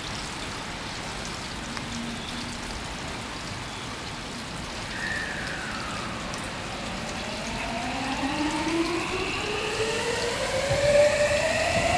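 JR 521 series electric train pulling away, its inverter-driven traction motors whining in several tones that climb steadily in pitch and grow louder from about seven seconds in as it accelerates, over a steady background hiss.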